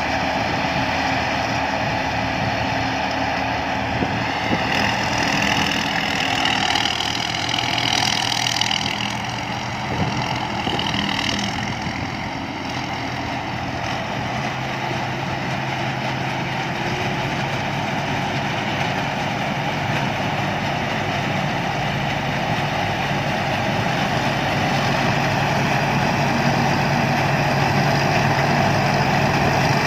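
Rice combine harvester's engine running steadily, with a high whine that rises and falls between about four and twelve seconds in; the engine grows gradually louder near the end.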